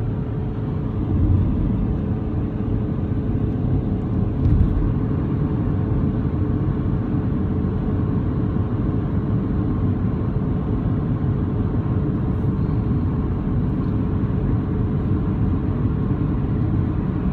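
Steady road and engine noise inside a moving car's cabin: a low, even rumble of tyres and engine at constant cruising speed, with a couple of slight bumps in the first few seconds.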